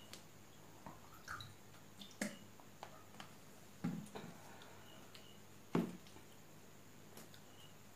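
Wet mouth clicks and swallowing after a drink of water from a plastic bottle, with scattered soft knocks, two louder ones in the second half.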